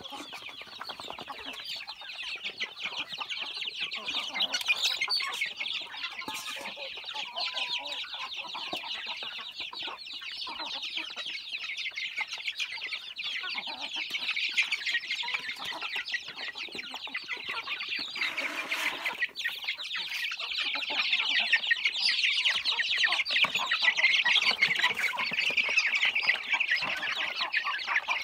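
A flock of chickens: a constant dense chorus of chicks peeping, with clucking. It grows louder in the last third, and a short scuffle of noise comes about two-thirds of the way through.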